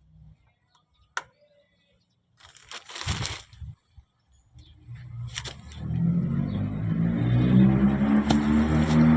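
A sharp click, a brief rustle, then a low motor-like running sound that starts about five seconds in and grows steadily louder.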